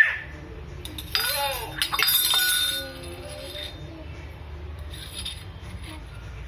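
Stainless steel tumbler and spoons clinking against a marble floor. A first clink comes about a second in. The loudest metallic clank follows about two seconds in and rings briefly like a bell, then lighter clinks come later.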